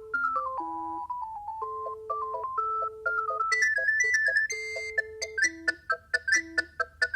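Alcatel One Touch 320 mobile phone playing a ringtone: an electronic melody over a lower bass line. About three and a half seconds in the tune moves higher and turns to short, clipped notes.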